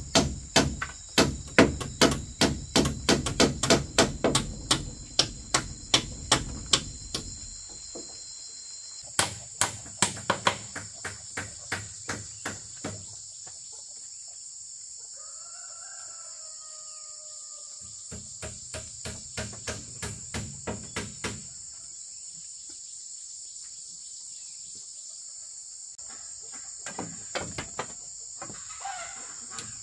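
Hammer blows in runs of quick, evenly spaced strikes, about three a second, stopping and starting several times, over a steady high chirring of crickets and other insects. A short bird call comes about halfway through, during a pause in the hammering.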